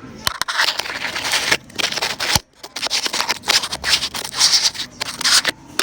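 Loud, irregular rustling and scraping close to the microphone, in short bursts that stop and start, like fabric or plastic rubbing against the recording device.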